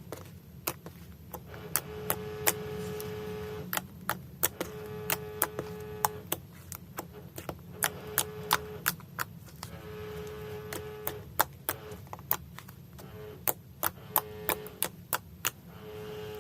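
Slime being handled, squished and stretched, giving many sharp clicks and pops, about two or three a second at irregular intervals. A faint held musical tone comes and goes in stretches.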